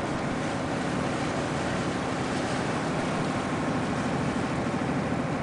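Passenger shuttle boat's engine running steadily under way, a low even drone with the hiss of water along the hull.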